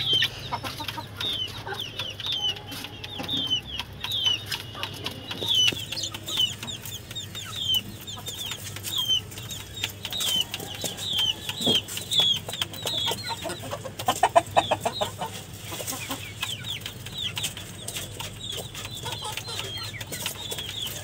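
Young chickens peeping over and over, short high calls that slide down in pitch, one or two a second, while they peck feed from a bowl with a scatter of sharp beak taps.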